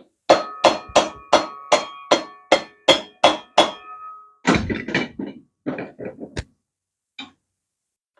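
A hammer striking metal about three times a second, each blow ringing. These are followed by a quicker cluster of knocks and one faint knock near the end.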